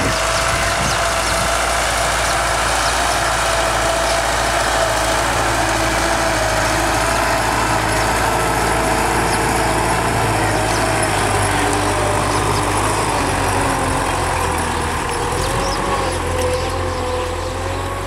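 Tractor engine running steadily under load as it pulls a disc harrow, with a wavering whine above the engine note; a little quieter near the end.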